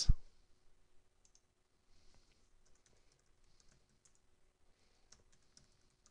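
Faint computer keyboard typing: scattered, irregular key clicks as a password is typed in, with one louder click at the very start.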